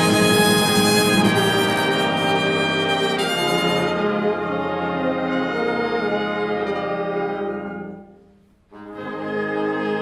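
Concert band playing a loud, brass-led passage of held chords. The sound dies away to a short break about eight seconds in, then the band comes back in more softly.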